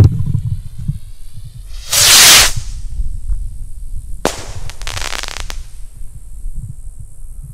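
Consumer firework rocket in flight: a thump at the start, a loud hiss for under a second about two seconds in, then a sharp bang a little after four seconds as it breaks, followed by about a second of small crackles.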